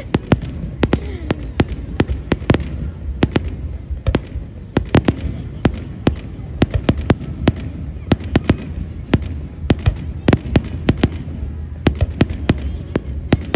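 Aerial fireworks display going off: a rapid, irregular run of sharp bangs, often several a second, over a steady low rumble.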